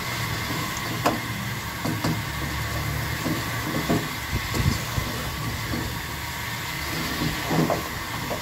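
Wooden spoon stirring meat and masala frying in a pot on a high flame: scattered scrapes and knocks of the spoon against the pot, the sharpest about a second in, over a steady rumble and hiss.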